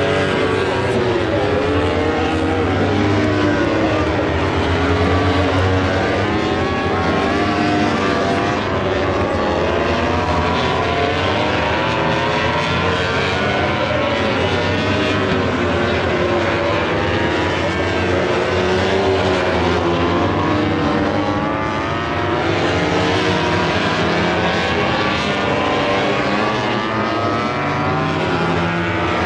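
Several racing motorcycle engines running hard at once. Their pitches overlap and keep rising and falling for the whole stretch, with no break.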